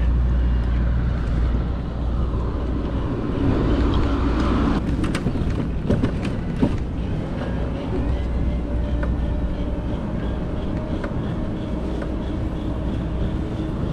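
Wind rumbling on the microphone and city traffic noise during a ride on an electric cargo bike, with a few sharp clicks about five to seven seconds in.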